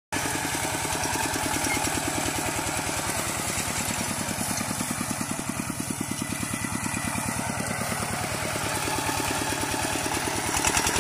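Kubota walk-behind two-wheel tractor's single-cylinder diesel engine chugging steadily with even firing beats, under load as it pulls a plough through the soil.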